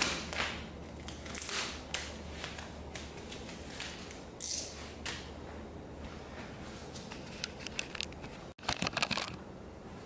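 Hands handling vinyl wrap offcuts: a string of short rustles and crinkles with small clicks, the busiest burst near the end.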